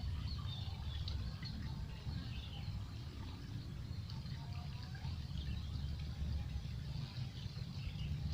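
Scattered small bird chirps over a steady low rumble.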